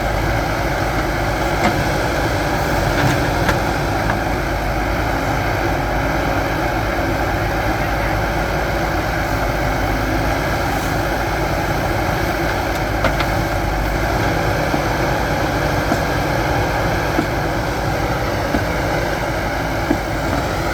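Heavy machinery engine running steadily, with a few faint knocks or clanks now and then.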